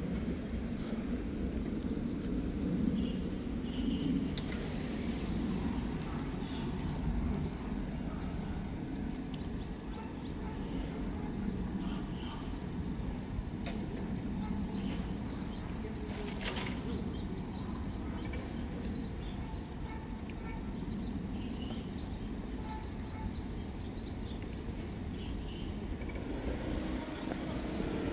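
Steady low background rumble of city ambience, with faint scattered clicks and knocks.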